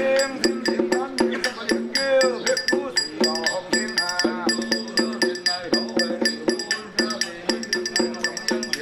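A man chanting a ritual invocation in a sing-song voice, over a steady clicking percussion beat of about four strokes a second.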